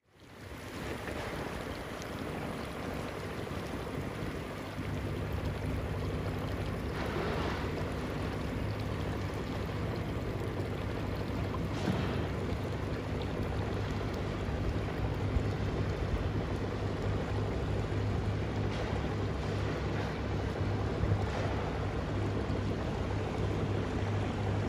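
Boat engine running steadily over water noise, its low hum growing stronger about five seconds in.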